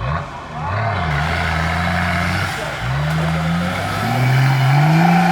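Off-road 4x4's engine revving: it holds high revs, drops off briefly about halfway, then picks up again and climbs toward the end.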